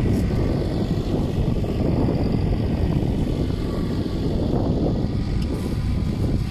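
Tractor engine running steadily as it pulls a mounted boom sprayer across the field, mixed with wind buffeting the microphone.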